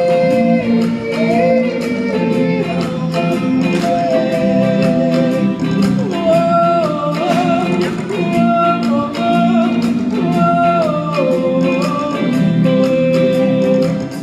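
Live band music with a group of singers holding long notes in harmony over a steady drum beat.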